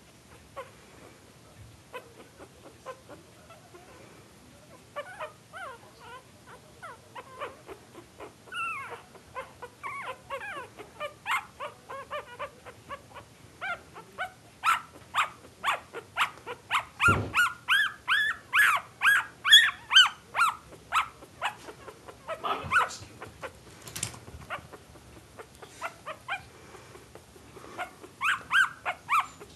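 Thirteen-day-old papillon puppies whimpering and squeaking in short rising-and-falling cries. The cries are faint at first, then come faster and louder from about a third of the way in.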